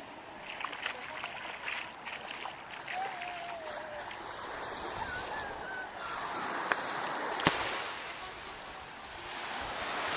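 Surf washing onto the beach in a steady rush that swells twice, with a couple of faint distant calls and a sharp click about seven and a half seconds in.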